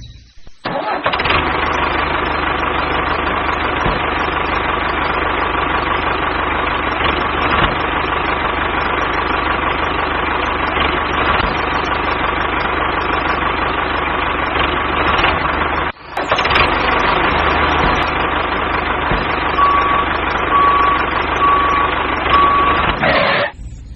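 Dubbed sound effect of a heavy vehicle engine running steadily. It breaks off briefly about two-thirds through, and near the end four short reversing beeps come about a second apart.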